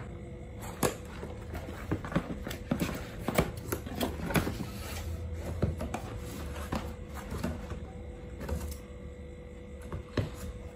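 Hands opening a cardboard gift box tied with ribbon: irregular clicks, taps and rustles of cardboard, ribbon and scissors, over a faint steady hum.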